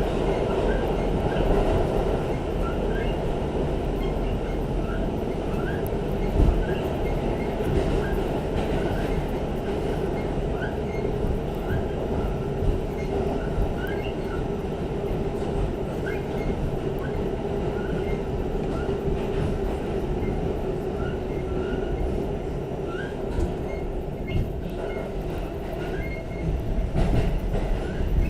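R46 subway car running between stations, heard from inside the car: a steady rumble of wheels on rail with short high wheel squeaks every second or two.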